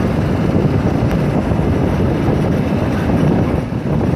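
Steady rumble of a vehicle driving along a road: engine and road noise.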